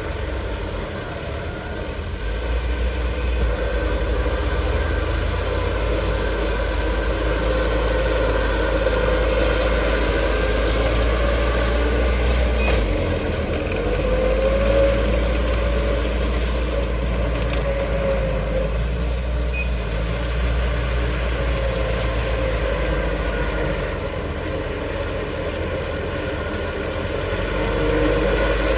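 Bulldozer's diesel engine running steadily, its pitch rising and falling slowly as the load changes.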